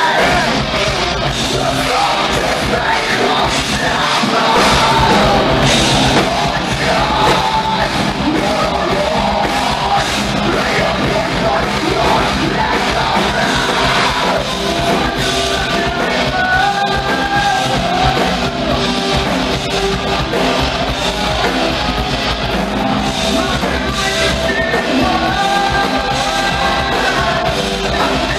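Hard rock band playing live: electric guitars, bass guitar and drums under a lead singer's vocal lines that come and go.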